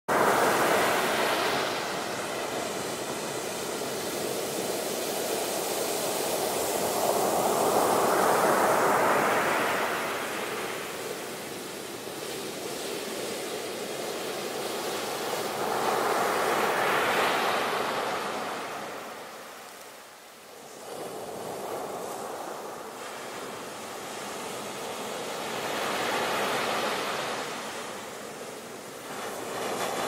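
Ocean surf: waves breaking on a beach and washing up the shore. The sound swells and fades in slow surges about every eight to nine seconds, with a quieter lull about two-thirds of the way through.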